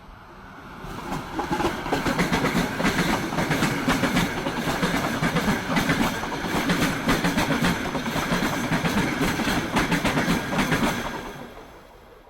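A train passing by, its wheels clattering over the rail joints with fast, repeated clicks. It swells up quickly about a second in, stays loud for about ten seconds, then fades away near the end.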